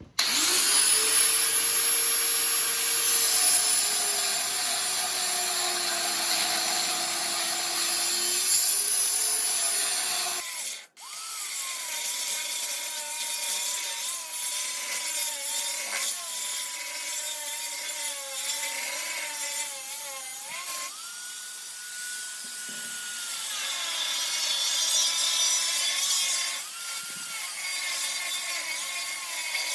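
Angle grinder with a cut-off wheel cutting through a steel frame rail: a steady high whine that sags in pitch as the wheel bites and picks back up, with a loud grinding hiss. It breaks off abruptly about eleven seconds in and starts again straight after.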